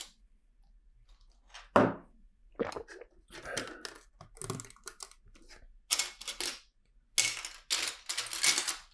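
A single thunk about two seconds in, then clicking and rattling of plastic LEGO bricks being handled and sorted on a table, busiest near the end.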